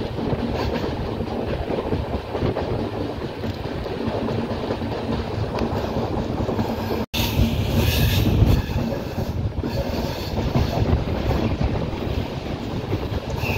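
Capital Express passenger train running along the track, heard from an open coach window: a steady rumble of the coaches and wheels on the rails. The sound cuts out for an instant about seven seconds in, and the low rumble is heavier for a moment after.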